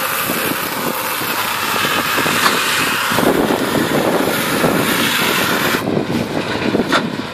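Tractor and combined round baler-wrapper running as they move across a field, a steady mechanical rush with a low rattling clatter. The high hiss drops off about six seconds in.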